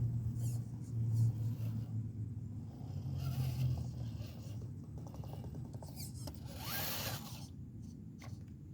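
Low engine rumble of a Mack 6x6 truck, strongest for the first four seconds and then fading. A brief hiss about seven seconds in, with a few sharp clicks.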